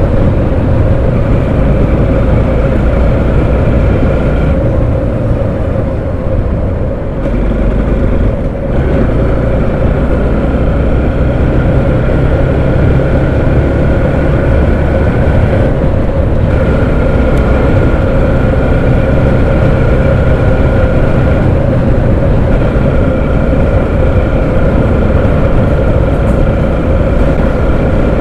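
Motorcycle engine running steadily at road speed, with heavy wind rush over the bike-mounted microphone. The level dips briefly about five to eight seconds in as the engine eases off, then picks up again.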